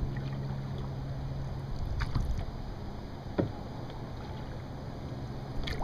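Canoe being paddled on a lake: a low steady wash of wind and water with a few short knocks and splashes of paddle strokes, two about two seconds in, one about three and a half seconds in and one near the end. A faint steady hum runs under it for the first two seconds.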